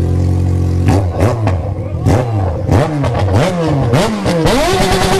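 Yamaha FZ6's inline-four engine idling, then blipped quickly five or six times from about a second in, pitch rising and falling with each blip. Near the end it is revved up high and held there.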